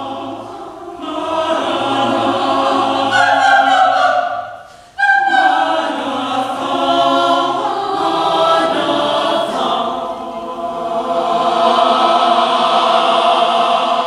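Mixed chamber choir singing a cappella in sustained, full chords. The sound breaks off briefly about four and a half seconds in and re-enters suddenly and loudly, and the chord is cut off near the end.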